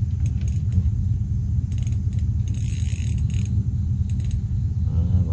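Short bursts of light metallic clicking and jingling from a small spinning fishing reel being handled and cranked, over a steady low rumble.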